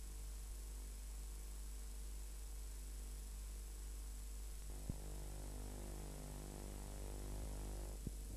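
Steady low mains hum with faint hiss from an old videotape recording, with one small click about five seconds in.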